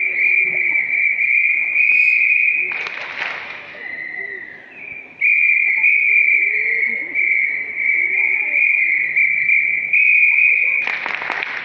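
A high, steady whistle-like tone that wavers slightly, broken briefly about five seconds in. Two short bursts of noise come about three seconds in and near the end.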